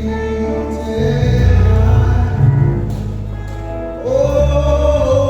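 Gospel-style vocal sound check: sustained sung notes over heavy low bass notes that change every second or so, with one held note swelling up about four seconds in.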